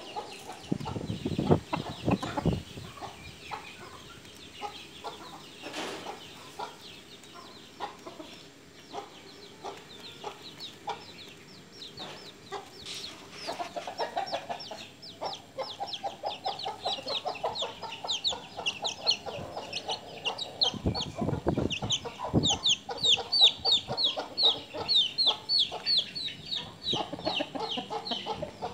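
Rooster clucking while it feeds, with a fast run of short, high chirps through the second half that grows louder near the end.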